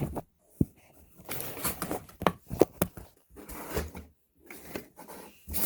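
Items being handled and unpacked from a cardboard shipping box: a few light knocks of products being set down or moved, and rustling of the paper packing.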